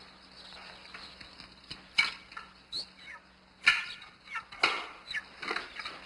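Quiet room with a handful of light clicks and knocks of sewing things and furniture being handled, a few of them with short high chirps; the loudest come a little under four seconds and nearly five seconds in.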